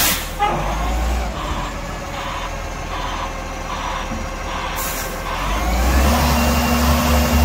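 Diesel engine of a garbage compactor truck running, with a short hiss of air brake air at the start; over the last two seconds the engine revs up with a rising whine as the truck strains to drive its stuck rear wheels off a kerb.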